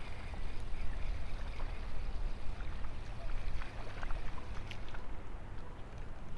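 Wind rumbling on the microphone, with faint clicks from a spinning reel being cranked as a hooked crappie is reeled in and splashes at the surface near the bank.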